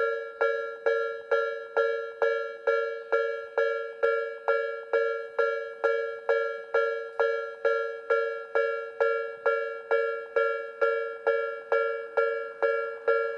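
Japanese railway level-crossing warning bell ringing steadily at a little over two strikes a second. Each strike is a two-note metallic ding that fades before the next. It warns of an approaching train.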